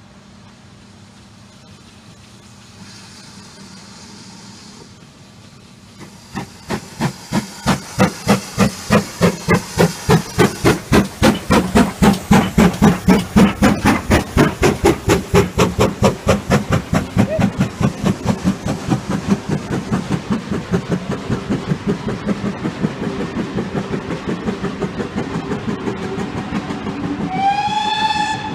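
GWR Small Prairie tank locomotive No. 5541 passing without stopping: its exhaust chuffs in a rapid, even beat that grows loud as the engine goes by, then the coaches run past. Near the end a steam whistle sounds, rising briefly in pitch and then holding steady.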